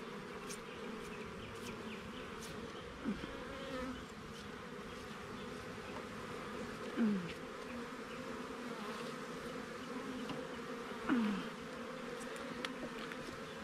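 Honeybees buzzing in a steady swarm around an open hive. Three times, a single bee's buzz swells louder and sweeps down in pitch.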